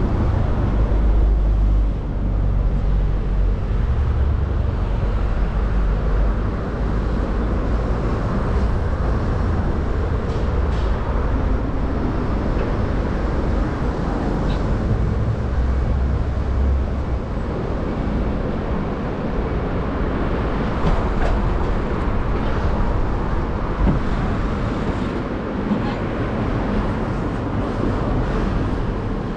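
City street traffic noise heard while riding a bicycle, a steady wash of passing vehicles with a heavy, uneven low rumble and a few faint clicks.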